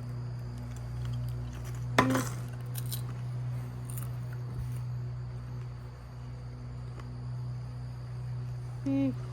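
Quiet popcorn tasting: a few sharp clicks and clinks of dishes being handled over a steady low hum, with a short hummed 'mm' near the end.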